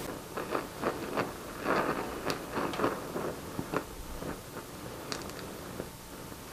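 Henrob 2000 oxy-acetylene gas welding torch flame hissing softly on steel while a filler rod is fed into the weld puddle, with irregular small crackles and pops, most of them in the first few seconds.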